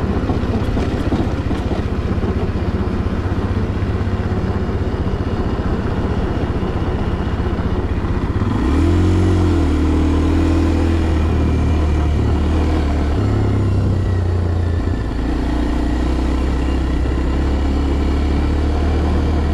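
Kawasaki KLX230R's single-cylinder four-stroke engine running as the bike is ridden. It runs steadily at first, gets louder with a rising pitch about halfway through, drops briefly a few seconds later, then settles into a steady run.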